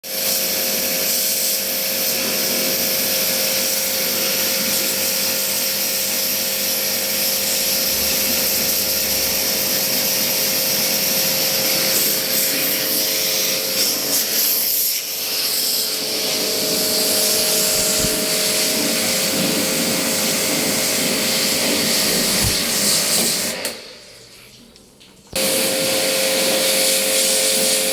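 Electric pressure washer running and spraying water onto a window AC unit: a steady motor whine with a hiss of spray. It cuts off for about a second and a half near the end and starts again.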